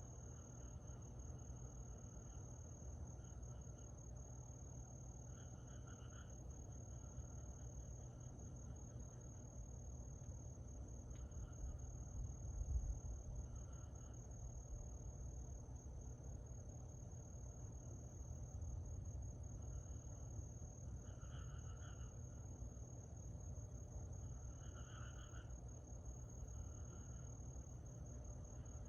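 Crickets and other night insects singing together: a steady high trill, with a lower pulsed chirping that comes and goes and is loudest near the end. A low rumble runs underneath and swells briefly about halfway through.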